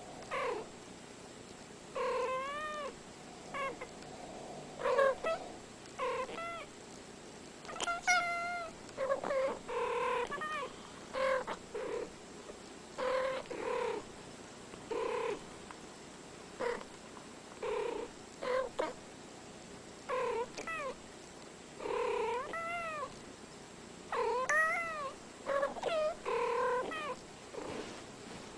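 Domestic cats trading short chirping meows back and forth, one brief rising-and-falling call after another every second or so.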